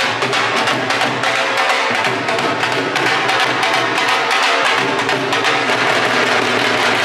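Music with a busy percussion beat of many quick, closely spaced drum strikes.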